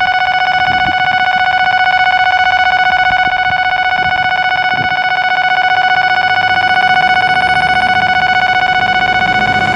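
Japanese level-crossing warning alarm ringing steadily with its electronic tone, signalling that a train is approaching.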